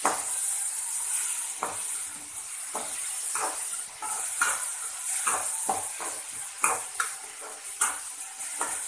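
Chopped onions, green chillies and curry leaves sizzling in oil in a metal kadai, with a steady high hiss, while a spatula stirs them, scraping and knocking against the pan in irregular strokes.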